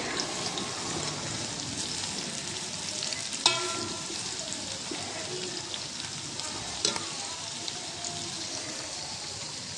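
Sliced onions sizzling steadily in hot oil in a metal pot, being fried toward a light golden brown. A metal slotted spoon stirring them clinks against the pot twice, once with a short ring.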